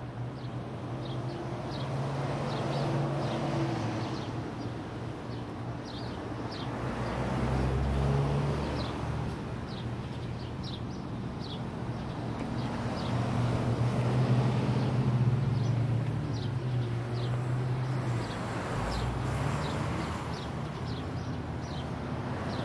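Distant Coaster commuter train rolling by, its diesel locomotive a low steady drone that swells and fades. Small birds give many short, high chirps throughout.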